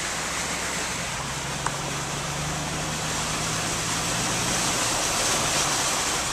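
Car driving, heard from inside the car: a low, steady engine hum under a constant rush of tyre and road noise. About two-thirds through it grows a little louder and hissier as the tyres run through shallow floodwater on the road.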